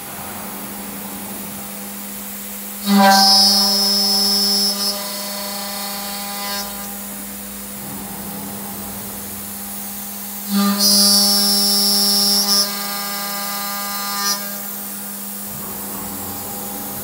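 LCJG3-CNC-6000 aluminium-profile CNC machining centre with its spindle running at a steady high hum. Twice, about three seconds in and again about ten seconds in, it breaks into a louder, higher-pitched cutting sound lasting about two seconds as the tool cuts into the aluminium profile.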